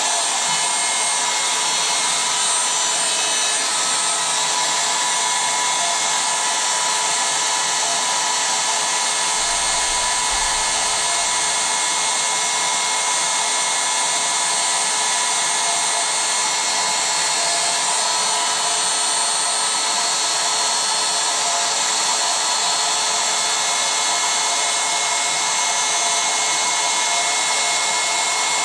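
Electric air pump running steadily with an even whine, blowing air into an inflatable.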